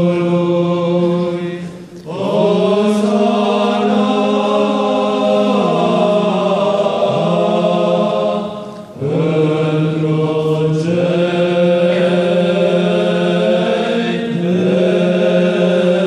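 Byzantine chant sung by male voices, a low ison drone held steady and loud beneath the moving melody. The singing breaks off briefly twice between phrases.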